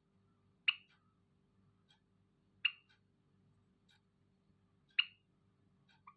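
Zebra finch giving three short, loud calls about two seconds apart, with faint scattered clicks between them.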